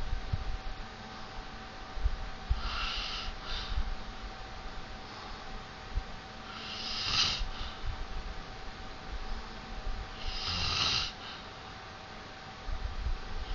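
A man snoring in his sleep: three loud snores about four seconds apart, the last reaching lowest.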